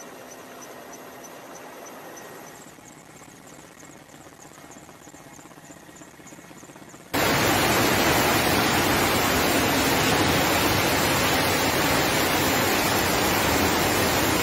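Faint steady hiss with a faint high ticking, then, about halfway through, an abrupt start of the loud, steady rush of a muddy flood torrent pouring along a road.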